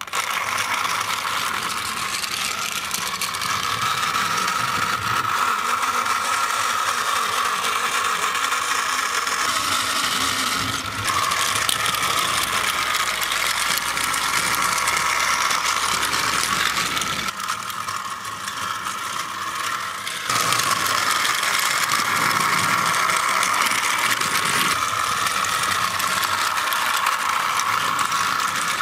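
Small AA-battery electric motor and plastic gearing of a knockoff toy train engine, whirring and rattling steadily as it runs around plastic track. It starts abruptly as the engine is switched on, and goes quieter for a few seconds in the middle.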